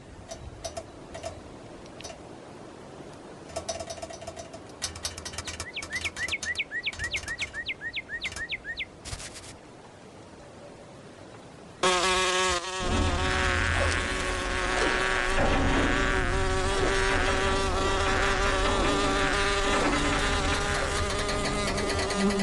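A cartoon housefly's wings buzzing loudly and steadily, starting abruptly about halfway in. Before that, a few soft clicks and a quick run of short rising chirps.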